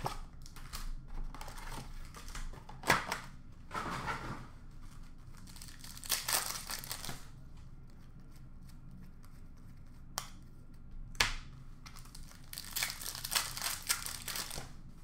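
Hockey card pack wrappers torn open and crinkled by hand, in several separate bursts of rustling, the longest near the end, with a couple of sharp clicks in between.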